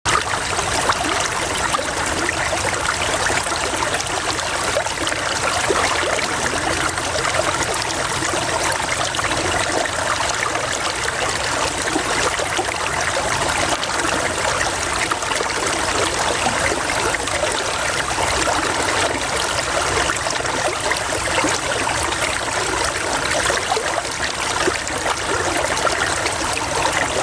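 Running water in a stream, flowing and trickling steadily without a break.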